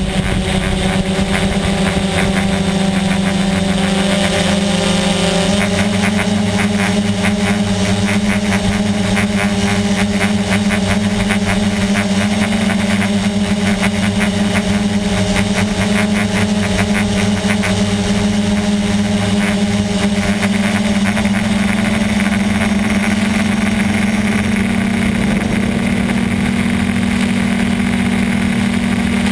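QX450 quadcopter's electric motors and propellers humming steadily, heard close up from the camera mounted on the drone in flight. The pitch steps up slightly about five seconds in and again near the end.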